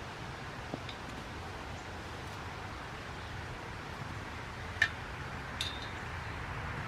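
Steady outdoor background noise, with a sharp click a little under five seconds in and a short high clink soon after.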